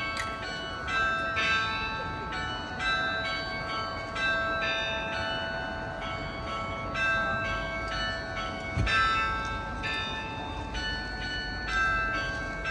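Several church bells rung together, their strokes overlapping in an irregular peal with long ringing tones. A brief low thump sounds about nine seconds in.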